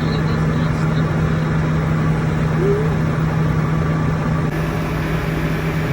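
Combine harvester running steadily, a constant engine hum over a broad mechanical rush.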